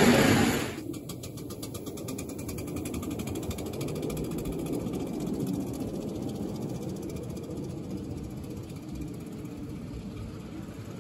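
5-inch-gauge live steam tank engine and its coaches running on a backyard track: a loud rolling rumble as the coaches pass close by cuts off under a second in. The train is then heard more faintly across the lawn, with a rapid run of light clicks for a few seconds.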